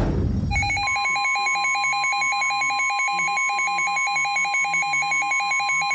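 A weather radio receiver's alert alarm pulses rapidly, warbling between two pitches. About a second in, a steady single-pitch NOAA Weather Radio warning alarm tone (1050 Hz) joins it and holds, signalling that a warning broadcast follows.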